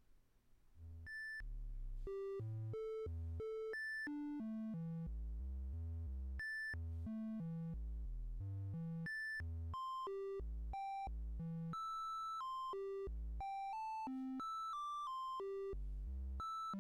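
Roland System-1m synthesizer playing a quick sequenced run of plain triangle-wave notes, several a second, jumping between low and high pitches, starting about a second in. The filter is wide open and a long amp release lets the notes ring into each other. Velocity is held at a constant value, and the envelopes give only a little crackle.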